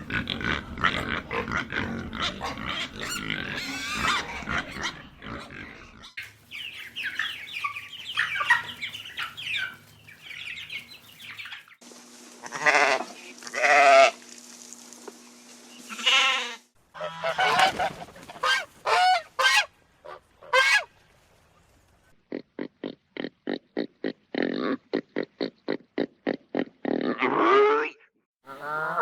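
Different farm animals calling one after another, among them bleating goats and honking geese. It begins with a dense, noisy stretch, moves to wavering, pitched calls in the middle, and ends with a fast, even run of short calls followed by one longer call.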